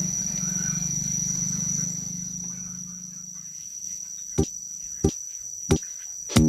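Crickets chirring steadily at one high pitch, with a low hum that fades out about two seconds in and a few sharp clicks in the second half.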